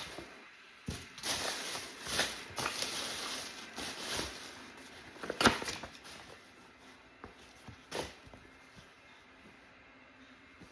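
Fabric being handled and folded: soft rustling with a few sharper taps, the loudest about five and a half seconds in.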